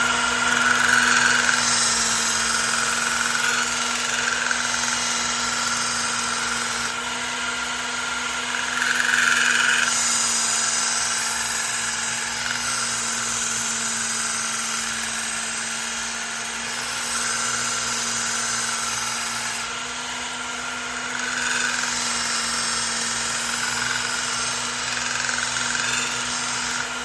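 Work Sharp Ken Onion belt sharpener running steadily, its motor holding one even hum while a knife blade is drawn across the moving abrasive belt. The grinding noise swells and eases several times as the blade makes its passes.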